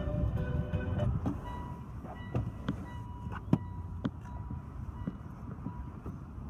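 Background music fading out about a second in, followed by light scattered clicks and knocks from a handheld camera being moved, over a faint steady high tone.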